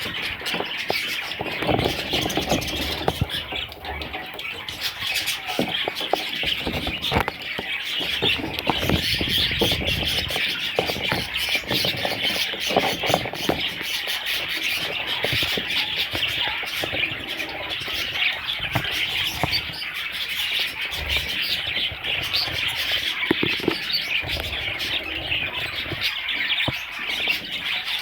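Several budgerigars chattering and chirping without pause, a dense warble of overlapping calls with scattered short clicks.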